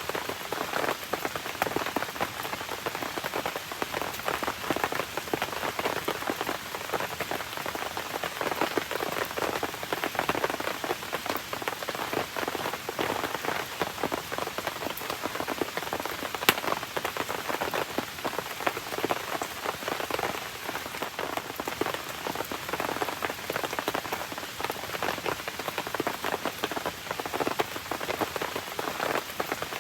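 Steady rain pattering down, dense and even, with a campfire crackling beneath it and one sharper pop about halfway through.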